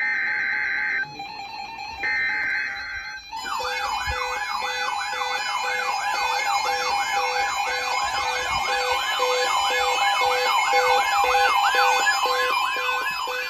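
Emergency Alert System warning tones: two short buzzy bursts of digital header data, then a warbling siren-like alert tone. The alert tone rises and falls about twice a second over a steady electronic tone.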